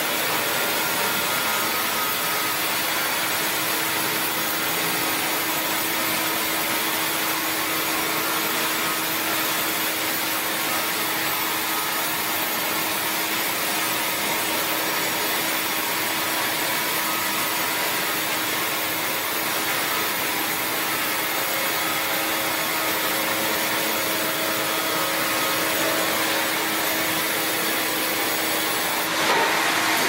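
Large log band saw ripping through a big log on its carriage: a steady cutting noise with a constant hum. About a second before the end the sound jumps suddenly louder and brighter.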